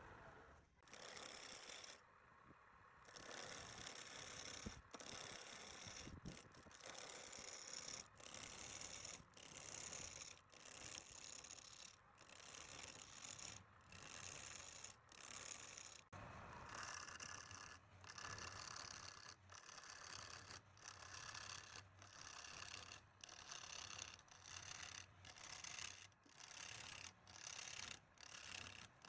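Wood being turned on a lathe: a hiss of a tool cutting or scraping the spinning wood in short repeated passes with brief breaks, and a low motor hum joining about halfway through.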